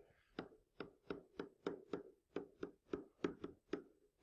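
Stylus tip tapping and clicking on a tablet screen while handwriting numbers and symbols: a quick, faint run of light taps, about four a second.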